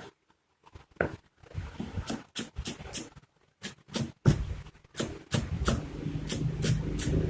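Knife slicing shallots on a cutting board: a series of sharp, irregular chops, two or three a second. A low steady hum joins in during the last couple of seconds.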